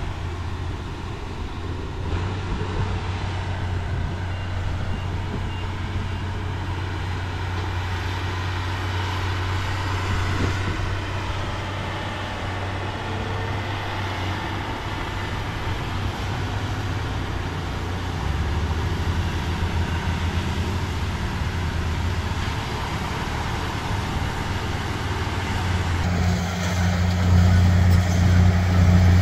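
Diesel engine of heavy earthmoving machinery running steadily with a deep, even drone, growing louder in the last few seconds as it takes more load or throttle.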